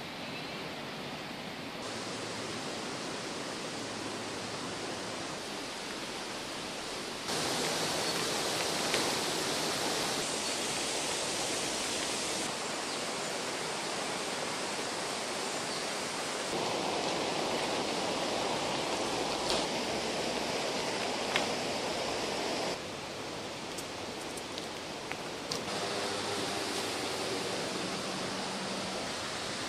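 Steady rushing of river water, an even hiss that gets louder and softer in abrupt steps several times.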